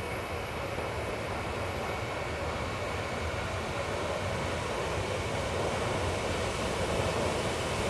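Steam locomotive 498.104, a ČSD class 498.1 'Albatros', approaching with its train: a steady rumbling and hissing noise that grows slowly louder as it draws near.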